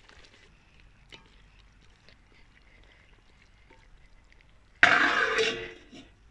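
Faint clicks of a wooden spatula in a metal cooking pot, then, about five seconds in, a sudden loud metallic clatter lasting about a second as a steel plate is set onto the pot as a lid.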